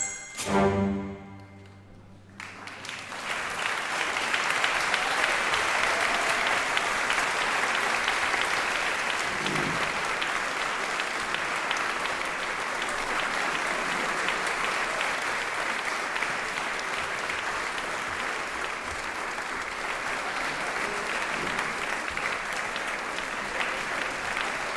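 A symphony orchestra's closing chord, cut off about two seconds in, followed by sustained audience applause.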